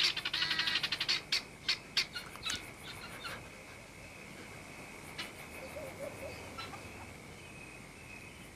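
Guineafowl alarm cackling: a rapid run of harsh calls that thins out and stops after about three seconds. A steady high insect trill goes on underneath.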